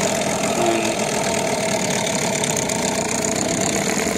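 Small two-stroke outboard motor, its cover off, running steadily on the boat's transom. It is not firing properly on one cylinder, which the owner blames for the oil and fuel he sees in the water.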